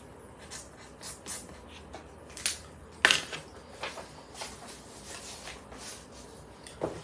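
Handling of a small paper card: short scratchy pen strokes and paper rustles, with one sharp, louder paper crackle about three seconds in as the card is picked up and folded.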